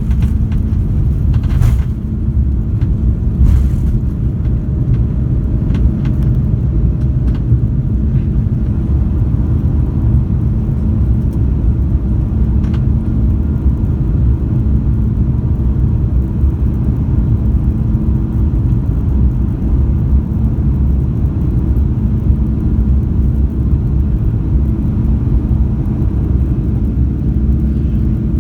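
Airbus A330-300's Rolls-Royce Trent 700 engines at takeoff power: a loud, steady deep rumble with a steady hum in it. A few faint clicks come in the first few seconds.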